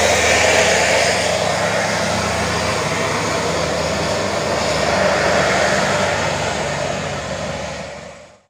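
Tour bus's diesel engine pulling steadily as the bus drives up the slope, a constant drone with a broad rush of engine and tyre noise. It fades out near the end.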